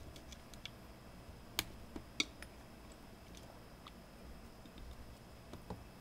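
Faint, scattered clicks and ticks of a small metal tool catching and slipping on the circlip at the pivot of an automatic wire stripper, with two sharper clicks about one and a half and two seconds in.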